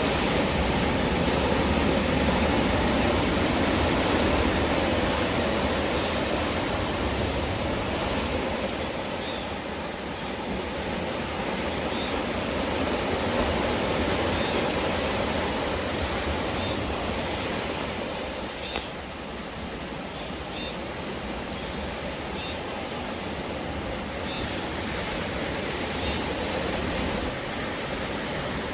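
Sea waves washing in against the shore: a steady rushing of surf that swells and eases slowly, louder in the first few seconds.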